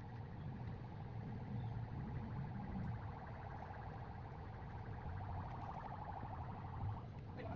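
Nissan Sentra's engine running steadily: a low hum with a steady higher drone above it.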